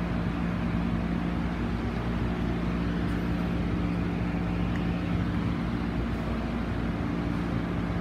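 A steady low machine hum with a few held tones, unchanging in level.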